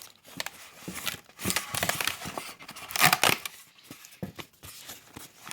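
Plastic packaging rustling and crinkling as it is handled while unpacking a car speaker, in irregular bursts with small handling clicks, loudest about three seconds in.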